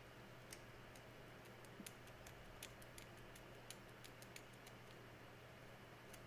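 Faint, irregular light ticks as the pivots of a watch escape wheel, held in brass tweezers, are stuck into pegwood to clean off residue, over a low steady hum. The ticks stop about four and a half seconds in, with one more near the end.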